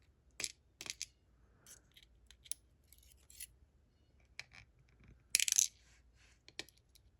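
Light metallic clicks and ticks as barrel driver pins are taken out of a disassembled Ruko Combi 2 lock one by one, with a louder metallic clatter about five seconds in.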